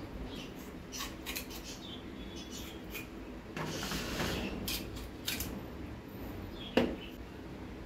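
Kitchen scissors snipping through raw goat intestine: a scattered series of short, sharp snips, with a louder knock near the end.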